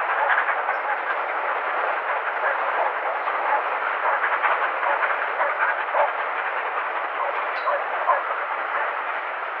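Steam train passing: the LMS Royal Scot Class locomotive 6115 Scots Guardsman going by, followed by its coaches clattering steadily along the rails.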